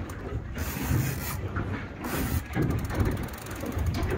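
Big-game fishing reel clicking rapidly and evenly under the load of a hooked southern bluefin tuna, with two short bursts of hiss about one and two seconds in and a steady low rumble underneath.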